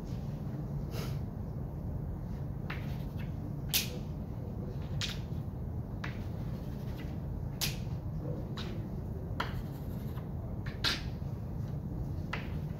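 Classroom room tone: a steady low hum with scattered sharp clicks and taps at irregular intervals, roughly one every second or so.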